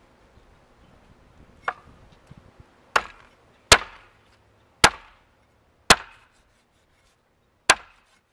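Machete chopping through an iguana carcass onto a wooden plank: six sharp blows, the first one lighter, the rest loud and roughly a second apart with a longer pause before the last.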